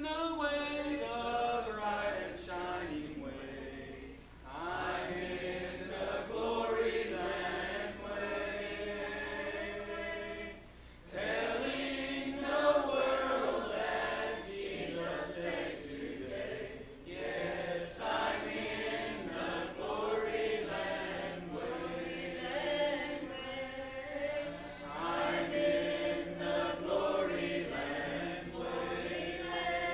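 A congregation singing a hymn a cappella, voices only with no instruments, in long held phrases with short breaks about four and eleven seconds in.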